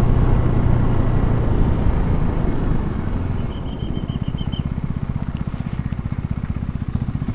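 KTM Duke 390's single-cylinder engine running, then dropping to idle about halfway through with an even pulse of about twelve beats a second as the bike slows to a stop. A short run of high beeps sounds a little after the middle.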